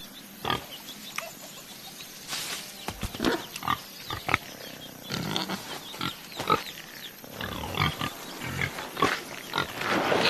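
An animal making a series of short, irregular calls.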